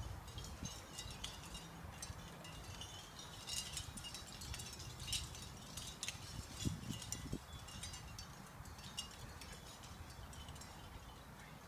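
Light, irregular metallic tinkling clinks run throughout over a low steady rumble, with a couple of soft low thumps about seven seconds in.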